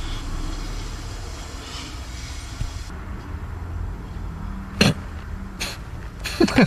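Low, steady rumble inside a car cabin. A short vocal sound comes about five seconds in, and quick breathy chuckles start near the end.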